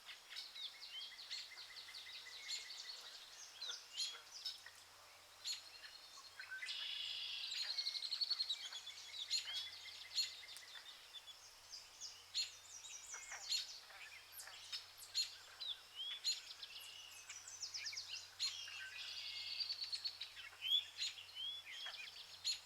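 Several birds singing together, a busy mix of quick chirps and trills, fuller for a few seconds about a third of the way in and again near the end.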